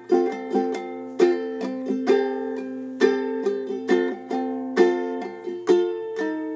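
Instrumental music on a plucked-string instrument: chords struck one after another, each left to ring and fade, with no singing.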